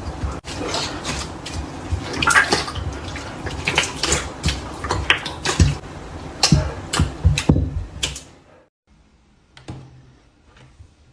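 Slime being squeezed and worked by hand: wet squelching with many sharp popping clicks, stopping abruptly about eight seconds in.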